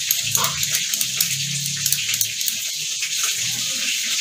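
Hot oil sizzling and crackling in a pan as grouper fries, a steady hiss with many small pops.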